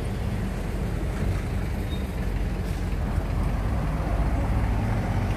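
A passenger bus's diesel engine running on the road, a steady low rumble that grows a little louder near the end.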